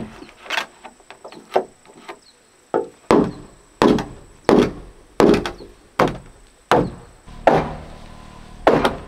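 Hammer blows on a wooden beam of a timber house frame: about a dozen sharp knocks, roughly one every 0.7 s, with a short pause about two seconds in.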